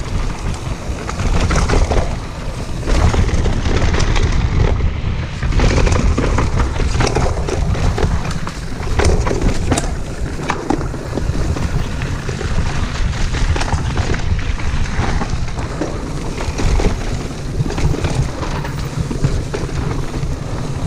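Mountain bike riding fast down a dirt singletrack: tyres rolling over dirt and roots with frequent rattles and knocks from the bike over bumps, under a heavy rumble of wind on the microphone.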